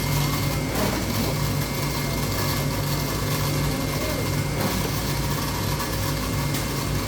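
Steady hum of factory machinery, a motor running without a break.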